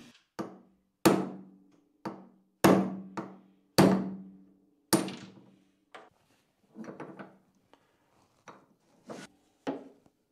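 Hammer striking a pin punch to drive a cross pin out of a Schaublin lathe's way-oil pump, about seven sharp metallic blows in the first five seconds, several of them ringing briefly. Lighter, quieter taps follow in the second half.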